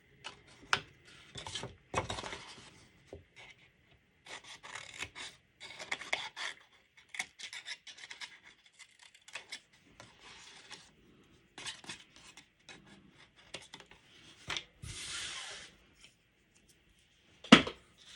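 Cardstock being handled and cut with scissors at the box corners: scattered paper rustles, scratches and snips, a scrape lasting about a second near three-quarters of the way through, and one sharp knock near the end.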